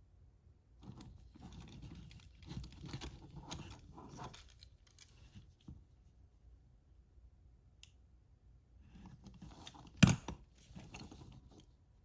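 Handling noises from small die-cast toy trucks and their packaging: rustling, light clicks and scrapes coming in clusters, with one sharp knock about ten seconds in.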